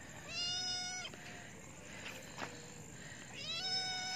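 A young stray kitten meowing twice, two drawn-out calls about three seconds apart, each sliding up at the start and then held. A kitten's calling for its missing mother, as the owners take it.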